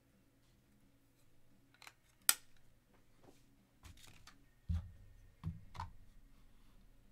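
Clear plastic card holder being handled: one sharp plastic snap about two seconds in, then a few dull knocks as the holder is set into a wooden display stand.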